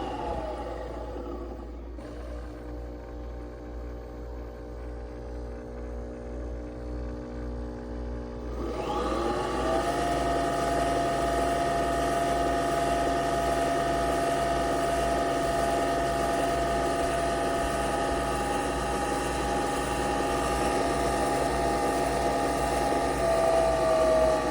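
A small appliance motor runs with a steady whine. About nine seconds in it speeds up, growing louder and higher, then holds a steady pitch.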